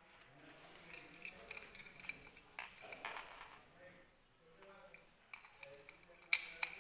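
A brass Navtal seven-lever padlock being handled: sharp metallic clicks and clinks from its key and shackle, with the loudest pair of clicks about six seconds in. Faint voices murmur underneath.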